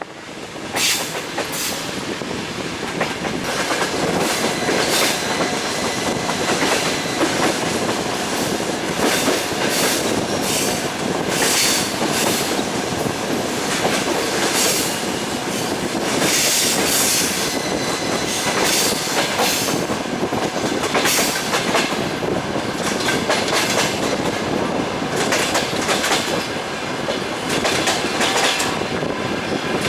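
Train wheels clacking over the rail joints as the carriage rolls along at a steady speed, with a continuous rumble of rolling noise and a sharp knock every second or two.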